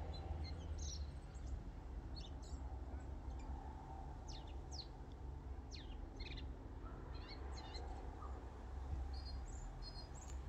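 Small birds calling with scattered short, quick chirps over a steady low outdoor rumble.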